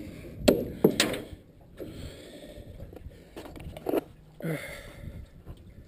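A few sharp knocks about half a second to a second in, then scattered lighter thumps and scrapes, as things are handled against the hull of an aluminum skiff.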